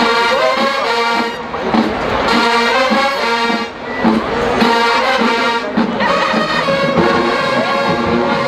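College marching band playing loudly, its brass section holding full chords in short phrases, with brief breaks about a second and a half in and near four seconds in.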